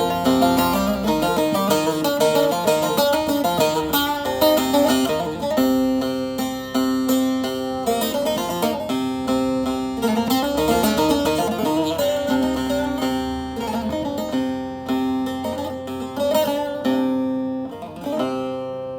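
Solo plucked string instrument improvising a picked melody over a steady held drone note, growing quieter toward the end.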